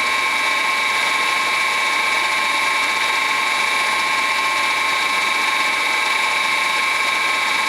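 Fryer MB-14 CNC bed mill's spindle running at a steady speed: a steady whine of several high tones that holds its pitch.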